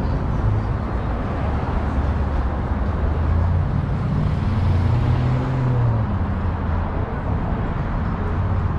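Steady road traffic on a multi-lane city boulevard. A car passes close about halfway through, its engine hum rising above the rumble of the traffic and then fading.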